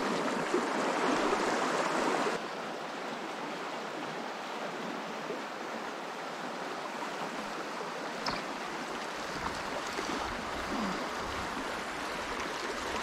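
River water running, a steady rushing wash that drops abruptly to a quieter level about two seconds in.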